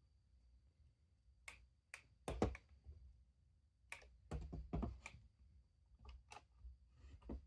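Irregular sharp plastic clicks from the buttons and controls of a radio alarm clock being pressed and handled, about a dozen, some in quick pairs, over a faint steady high whine.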